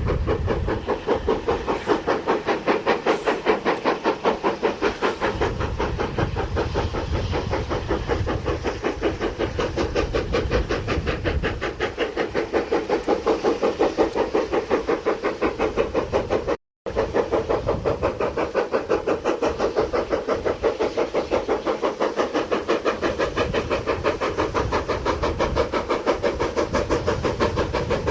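GER N7 0-6-2 tank steam locomotive working under steam, its exhaust beating in a quick, even rhythm. The sound drops out for an instant about two-thirds of the way through.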